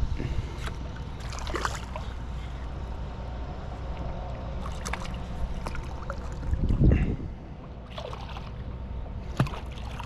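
Handling noises in a kayak: scattered knocks and rustles against the hull over a steady low rumble, with a heavier bump about seven seconds in and a sharp click near the end.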